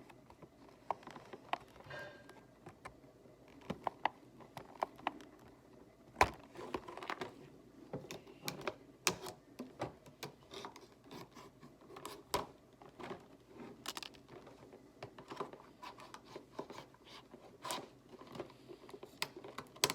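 Stiff plastic packaging being cut and worked open by hand: irregular sharp clicks, crackles and scraping.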